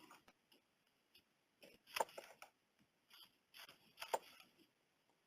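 Knife cutting an onion: a few separate, faint crisp cuts, the two sharpest about two and four seconds in.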